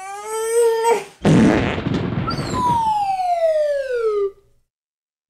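Cartoon toilet sound effects: a short strained, high-pitched groan, then a loud noisy fart blast about a second in, followed by a long whistle that slides steadily down in pitch for about two seconds and stops.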